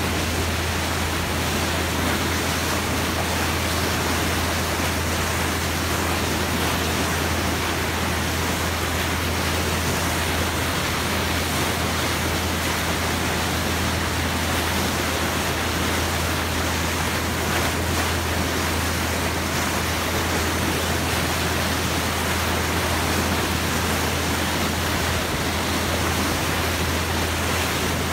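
Bow wave rushing and hissing steadily as the boat's hull cuts through the sea, with a constant low drone underneath.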